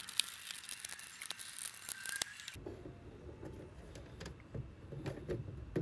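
Light clicks and scrapes of a screwdriver and hands working screws into the plastic back cover of a radio cassette player, the footage sped up. Partway through the sound turns abruptly duller.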